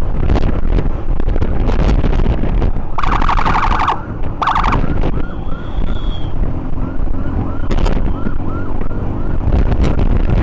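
Ambulance siren in its fast urgent yelp, short rising whoops repeating about three times a second, with two short loud blasts around the middle. Underneath runs a steady low rumble of traffic and wind.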